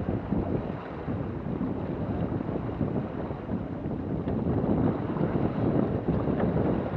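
Wind buffeting the microphone of a Garmin VIRB action camera aboard a sailing boat under way, with water rushing along the hull underneath; an uneven, gusty rumble with no distinct events.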